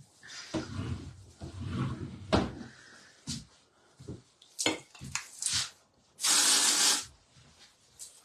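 A hair-product spray gives one short hiss about six seconds in. Scattered knocks and handling taps are heard before it.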